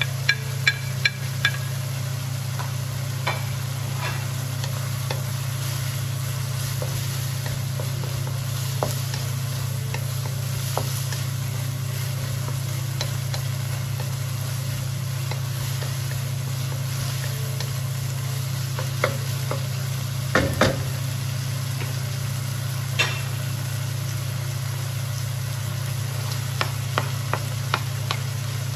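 Diced pork and onion sizzling in a nonstick wok as a wooden spatula stirs and knocks against the pan, over a steady low hum. A few quick taps near the start as the spatula knocks garlic off a plate, and another run of taps near the end as carrots are scraped from a plate into the wok.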